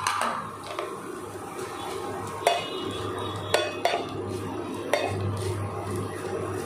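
A spatula stirring and scraping diced corn, carrot and capsicum as they sauté in a little oil in a nonstick pan, with a few sharp knocks of the spatula against the pan.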